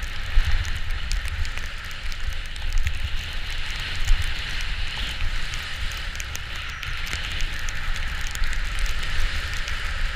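Wind rumbling over the microphone during a fast downhill run, with the steady hiss and scrape of edges sliding and carving on snow.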